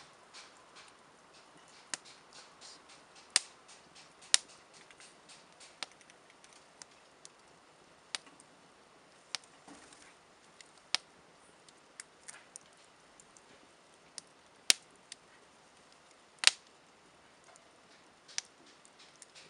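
Wood campfire crackling and popping: scattered sharp pops at irregular intervals, a few of them loud, over a faint steady hiss.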